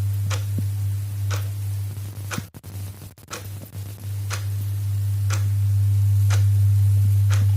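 Clock ticking once a second, each tick a short sharp click, over a steady low hum. The hum drops out briefly about two and a half seconds in.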